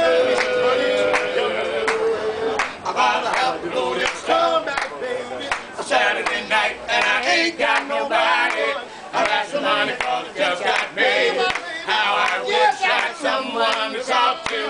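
A cappella group of men singing in harmony without instruments. A long held note opens the passage, then the voices move through shifting sung lines.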